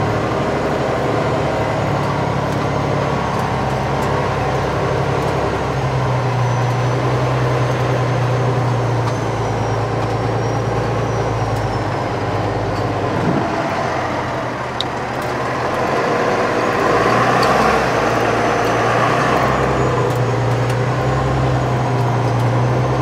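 A fire department tanker truck's engine running as the truck drives slowly, heard from inside the cab. The engine note eases off briefly a little past halfway, then builds again.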